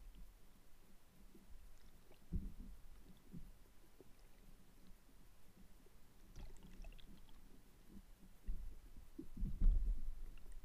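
Muffled low rumbles and thumps of water movement and handling heard through an underwater camera, louder about two seconds in and again near the end, with a few faint crackles around six to seven seconds in.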